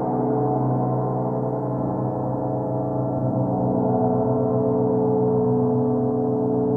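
24-inch gong made by Grand Master Turkish Cymbals ringing on in a sustained wash of many low and middle tones that waver and pulse, the "breathing" sound it is known for. No new strike is heard.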